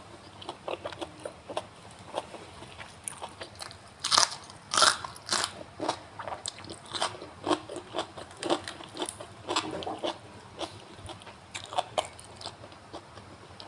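Close-up crunching of raw winged bean pods being bitten and chewed, with sharp snapping crunches; the loudest bites come about four and five seconds in, followed by steady crunchy chewing.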